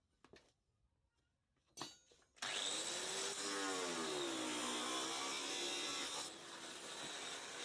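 A few faint clicks, then about two and a half seconds in an electric power tool starts up suddenly and runs loudly, its motor pitch dipping and recovering as it is loaded. It drops to a quieter steady hiss near the end.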